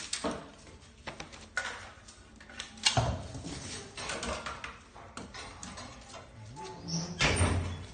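Scattered knocks and clatter of scrap refrigerator parts being handled and dismantled, with a louder knock about three seconds in and another near the end.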